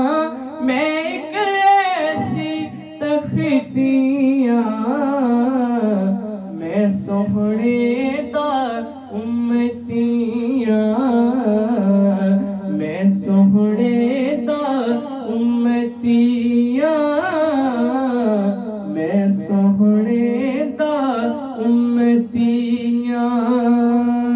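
A young man singing a Punjabi naat into a handheld microphone, in long, winding phrases with sliding ornaments.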